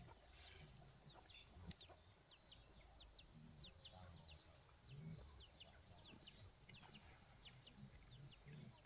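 Chickens, faint: low clucks about once a second under many short, high, falling peeps.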